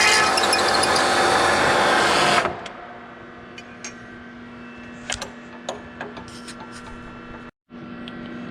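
Milling machine running while cutting a set-screw hole in a cast piston, a loud steady machining sound that stops about two and a half seconds in. After that only a low steady hum and a few light clicks remain.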